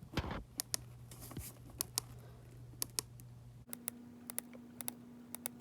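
Faint, scattered sharp clicks, a dozen or more at uneven spacing, over a low steady electrical hum that jumps to a higher pitch about two-thirds of the way through.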